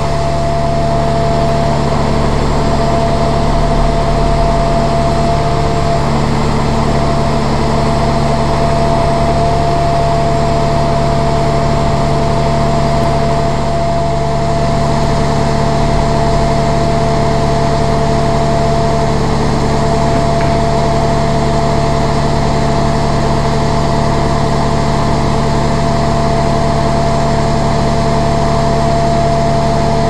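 Diesel engine of a truck-mounted concrete pump running steadily, with a constant whine over the engine's hum.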